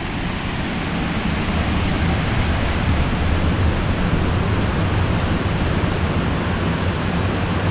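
Steady rush of a stream's flowing water.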